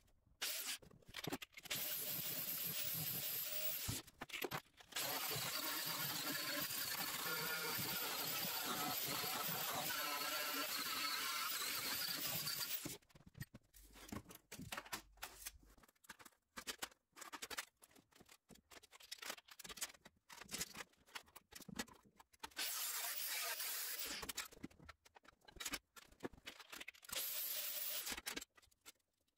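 Welding on the car's steel chassis: a steady hiss for about thirteen seconds, then short stop-start bursts to the end, like stitch or tack welds being laid.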